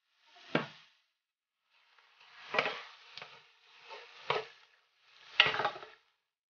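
Wooden spatula stirring and scraping a ground beef and pork filling in a stainless steel pan, four separate strokes each with a knock of wood on the pan and a brief sizzle.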